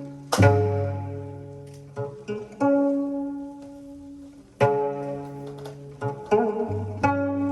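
Korean traditional ensemble music: sharp drum and gong strikes spaced a second or more apart, each leaving a low hum that fades slowly, with plucked gayageum and bowed ajaeng notes sounding between them.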